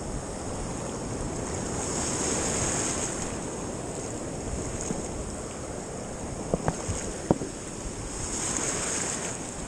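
Sea surf washing in on a sandy beach: a steady rushing that swells twice, a couple of seconds in and again near the end. A few sharp clicks come about two-thirds of the way through.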